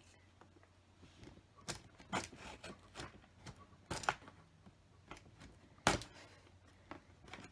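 Hands working a large cardboard LEGO set box open: an irregular string of light clicks, taps and scrapes on the cardboard, with sharper knocks about four seconds in and about six seconds in.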